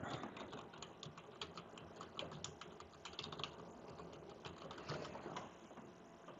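Computer keyboard typing: a quick, faint run of keystrokes that dies away about a second before the end.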